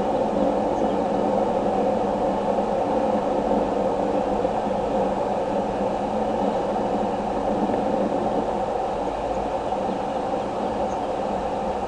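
Steady low rushing noise at an even level, with no separate calls or knocks standing out.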